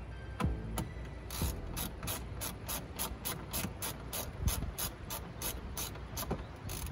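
Hand ratchet wrench being worked in steady strokes, its pawl clicking about four times a second, starting about a second and a half in.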